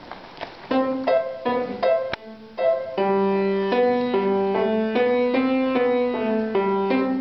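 Grand piano being played. It starts about a second in with a few separate notes, then settles into steady playing, a melody over held low notes.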